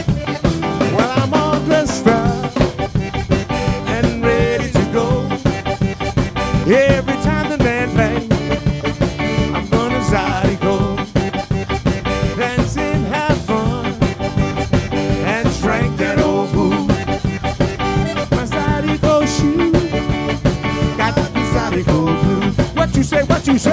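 Zydeco band playing live at a steady dance beat: piano accordion lead over electric guitar, bass guitar and drum kit, with a metal rubboard (frottoir) scraped in rhythm.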